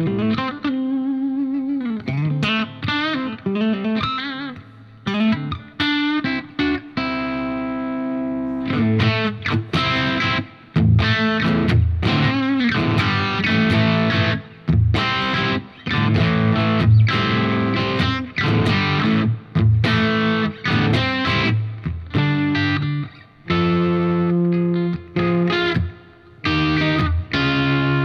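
Electric guitar played through a Diezel Schmidt amp's second channel, a mildly overdriven tone, with chords and single notes in phrases broken by short pauses. The notes waver in pitch for the first few seconds.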